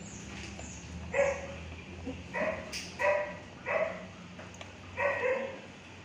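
A dog barking: five short barks spread unevenly across a few seconds.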